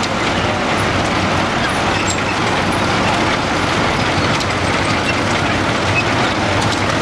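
Diesel engine of a small vintage Caterpillar crawler tractor running steadily as it drives slowly by, with a larger crawler bulldozer running close behind.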